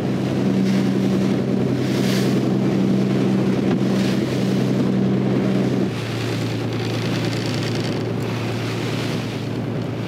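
A fishing boat's engine runs steadily under way, a constant low hum over wind on the microphone and the wash of the sea. About six seconds in, the hum drops lower and a little quieter.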